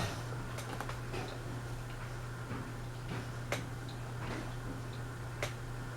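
Westinghouse Apollo Elite ceiling fan running on its low speed: a steady low motor hum with a few irregular ticks and clicks.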